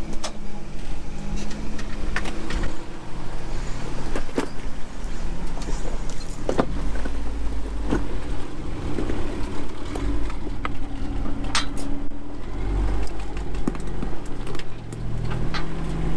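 Engine of a rock-crawling 4x4 truck working at low revs, its pitch rising and falling as it climbs over boulders, under a heavy low rumble. Sharp clicks and knocks are heard now and then.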